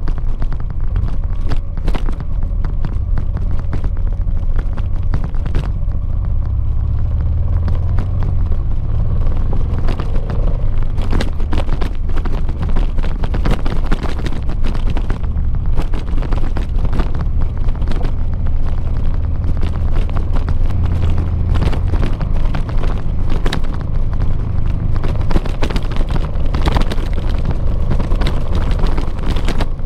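Honda XL700V Transalp motorcycle's V-twin engine running steadily on the move over gravel, under a dense low rumble, with many short knocks and rattles all the way through.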